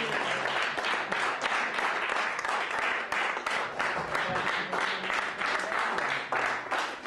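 Audience applauding: many hands clapping densely, thinning out a little toward the end.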